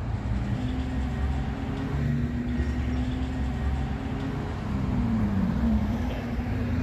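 Steam train approaching at a distance: a continuous low rumble with a steady low drone that dips in pitch about five seconds in.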